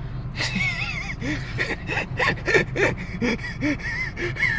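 A person's gasping, squeaky vocal sounds in a quick run of short bursts, starting about half a second in, over the car's steady low engine hum.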